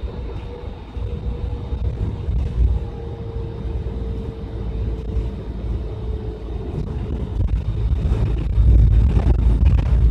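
Bus engine and road rumble heard from inside the cabin: a steady low drone with a faint hum that slides a little lower, growing louder and fuller about eight seconds in.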